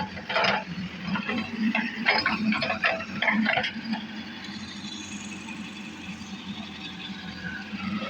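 Diesel engine of a JCB backhoe loader running steadily, with irregular clattering and knocking over the first three and a half seconds.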